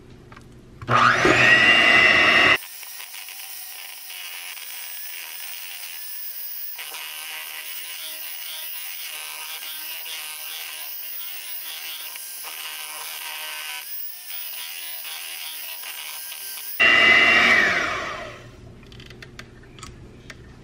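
Electric hand mixer beating banana bread batter in a stainless steel bowl: a loud high-pitched whine starts about a second in and cuts off abruptly a couple of seconds later. After a long quieter stretch, the mixer runs loudly again near the end and then winds down in pitch as it is switched off.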